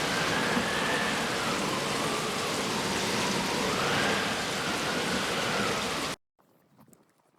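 Storm wind rushing, with a wavering howl that slides up and down in pitch; it cuts off suddenly about six seconds in, leaving only faint crackling.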